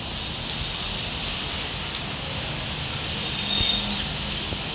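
Heavy rain falling on pavement, standing water and parked cars, a steady dense hiss. A faint short high tone sounds about three seconds in.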